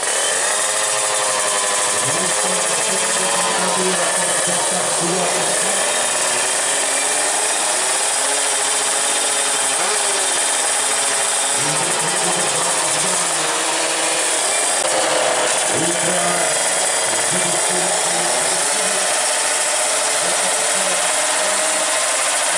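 Two-stroke drag bike engines running and being revved at the start line, the pitch rising and falling again and again as the throttles are blipped.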